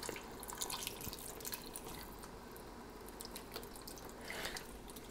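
Vegetable broth pouring from a carton into a hot stockpot, faintly splashing with many small scattered crackles as it deglazes the pot.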